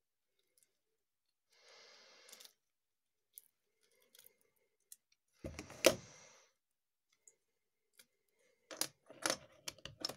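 Plastic LEGO bricks and a soft gelatin mold being handled: a short rustle near two seconds in, a louder knock about six seconds in, and several sharp plastic clicks near the end.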